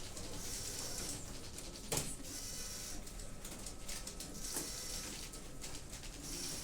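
Teleprinters clattering in a room: continuous mechanical chatter with intermittent bursts of rattling, a faint steady whine underneath, and one sharp knock about two seconds in.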